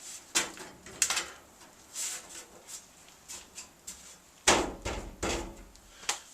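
Knocks and clatters of steel body panels and clamps being handled and set in place, a handful of separate bangs with the loudest, heaviest thud about four and a half seconds in.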